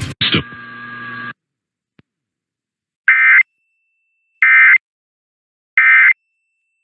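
Three short bursts of Emergency Alert System end-of-message data tones, the warbling "NNNN" code, about a second and a half apart, closing the test. They follow about a second of noisy audio with a steady tone in it.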